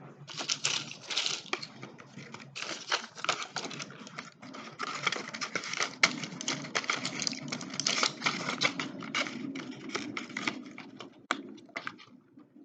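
Medicine packaging being handled close to the microphone: rapid, dense crinkling and clicking that dies away near the end.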